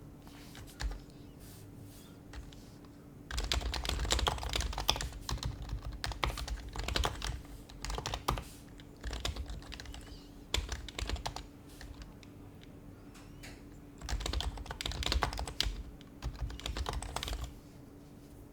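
Typing on an HHKB Professional HYBRID Type-S keyboard with Topre switches: a couple of single keystrokes, then fast runs of typing from about three seconds in, a short pause past the middle, and a second run that stops shortly before the end.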